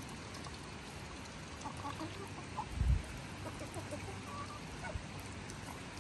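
Poultry giving short, scattered calls, with a low thump about halfway through.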